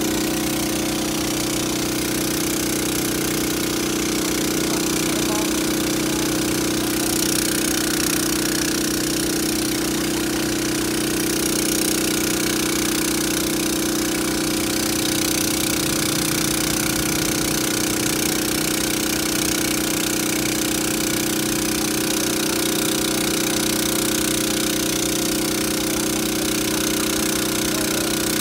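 Water tanker truck's engine and pump running steadily at constant speed with a fast, even rattle, feeding a hose that sprays water onto the road.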